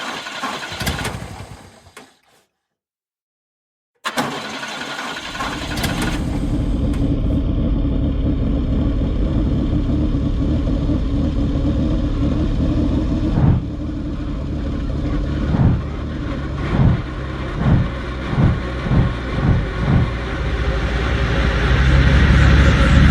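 Robinson R44 helicopter's six-cylinder piston engine starting: after some brief clicks and a short gap of silence, the engine catches about four seconds in and runs, building steadily. Around the middle comes a run of rhythmic swells about once a second, and it grows louder and deeper near the end.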